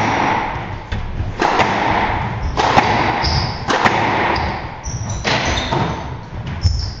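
Squash rally: the ball cracks off rackets and the court walls about every second and a quarter, each hit echoing in the hall, with brief high squeaks of court shoes on the wooden floor between shots.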